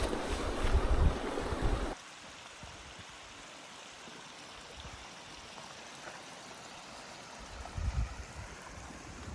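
Wind buffeting the microphone in gusts, cutting off abruptly about two seconds in to a faint steady rush, with one more brief gust near the end.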